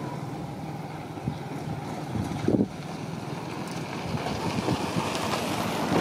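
Wind buffeting the microphone in a steady low rumble that grows a little louder toward the end, with one short louder low sound about two and a half seconds in.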